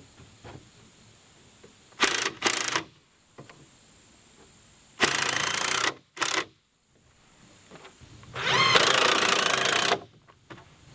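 Cordless impact driver driving screws in from the side through floor-framing noggins, in several runs: two short bursts about two seconds in, a longer run around five seconds followed by a short one, and the longest run, about a second and a half, near the end.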